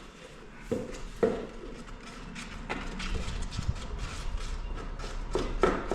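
Powdered filler being mixed in a tub with a filler knife: a few knocks early on, then quick repeated scraping and tapping of the knife against the tub.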